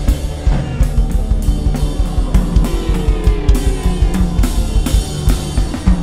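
Background music with a drum kit keeping a steady beat.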